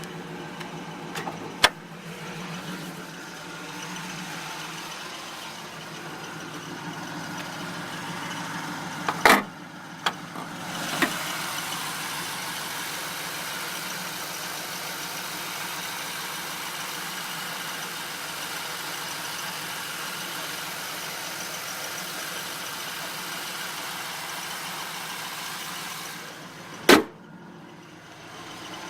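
1999 Pontiac Trans Am's V8 idling steadily through its Flowmaster exhaust. A few sharp knocks break in, loudest about a third of the way in and near the end.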